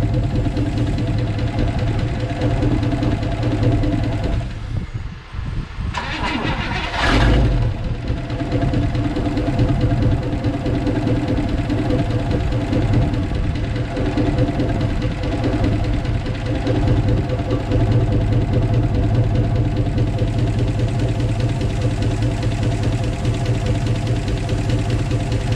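1957 Chevy Bel Air V8 with a Rochester 4GC four-barrel carburetor idling on its own after being started. About five seconds in it sags and nearly dies, then picks back up with a brief rise in revs and settles back to a steady idle.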